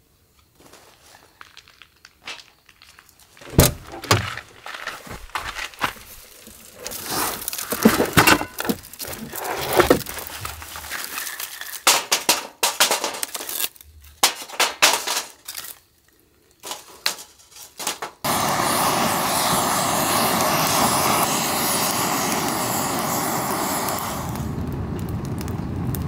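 Clinks and knocks of a folding steel fire pit being set up and split firewood being laid in it, with one loud thud early on. About two-thirds in, a loud steady rushing noise starts suddenly as the wood is being lit.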